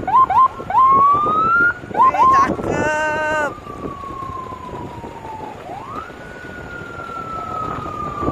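Electronic sirens on convoy SUVs: a few quick rising chirps, then a wail that climbs and slowly falls. About three seconds in a short buzzing horn tone cuts in, and near six seconds a new wail rises and slowly falls.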